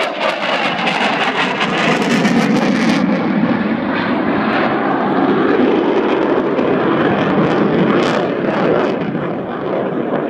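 Eurofighter Typhoon fighter jet flying a display pass, its twin EJ200 turbofan engines making loud, steady jet noise.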